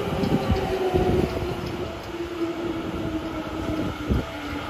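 Seibu New 2000 series electric train standing at the platform, its underfloor equipment humming with a tone that slowly falls in pitch. A few dull low thumps come through the hum.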